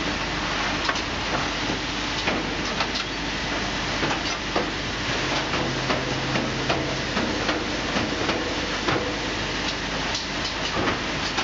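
Automatic bag-packing line running, with a conveyor, a bag-closing sewing head and a Fischbein-Saxon SH1000 heat sealer: a steady machine noise with frequent irregular clicks and knocks. A short low hum joins in about five seconds in and stops two seconds later.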